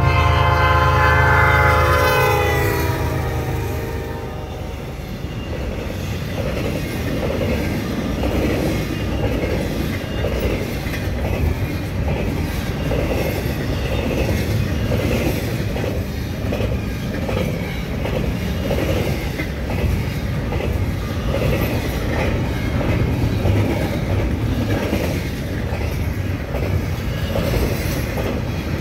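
Horn of a CN GE ES44 locomotive sounding with the heavy rumble of the lead diesels, the horn's pitch dropping as the locomotives pass about two seconds in. The horn stops, leaving the steady rhythmic clickety-clack of double-stack intermodal well cars rolling past at speed.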